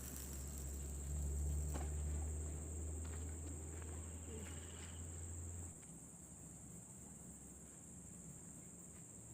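Steady high-pitched chorus of insects chirring at dusk, with a low hum underneath that cuts off suddenly a little past halfway.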